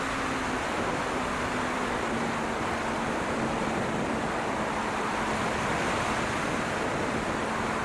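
Steady rush of wind over an onboard camera on an electric E-flite P-47 RC model plane in flight, with the faint steady hum of its brushless motor and spinning propeller underneath.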